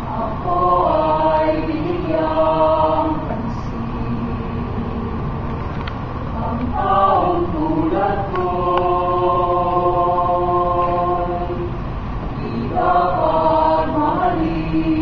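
Mixed choir of men and women singing in parts, moving through sung phrases with a long held chord in the middle.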